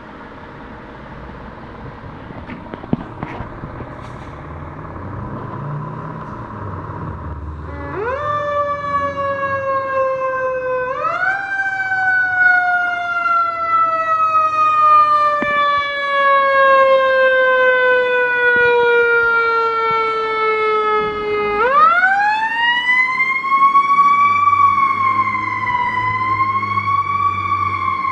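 A fire engine's motor runs and grows louder as it pulls out of the station. About eight seconds in, its mechanical siren winds up, sinks slowly in pitch as it coasts down, and is wound up again twice, wavering near the end.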